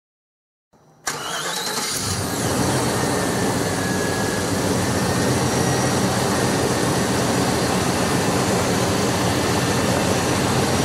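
1995 Chevrolet Silverado engine starting about a second in, catching quickly and then idling steadily. This is the first start after a power steering pump replacement and bleed.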